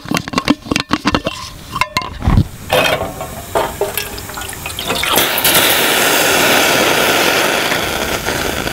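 Clattering and knocking of metal gear being handled, then water pouring steadily from about five seconds in.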